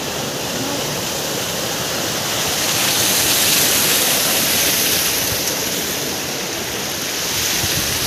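Waterfall rushing, a steady roar of falling water that swells a little in the middle.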